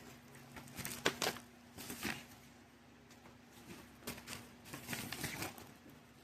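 Vinyl record sleeve and packaging being handled: short rustles and light taps about a second in, around two seconds in, and again between four and five and a half seconds in, over a faint steady hum.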